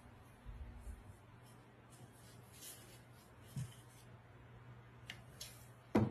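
Faint scuffling and rustling from a kitten playing with a cardboard tube on carpet tiles, with a soft thump a little past halfway and a sharp knock near the end. A low steady hum runs underneath.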